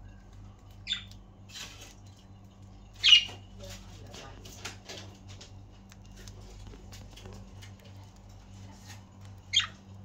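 Pet budgerigars giving short, sharp chirps: one about a second in, a louder one about three seconds in, and another near the end, with faint small clicks in between.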